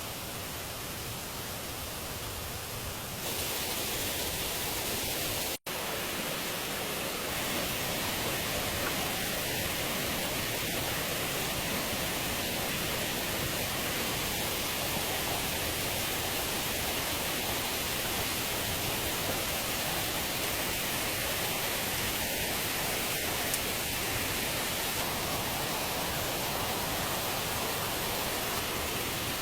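Steady, even rushing noise with no words. It grows a little louder about three seconds in and cuts out for an instant about five and a half seconds in.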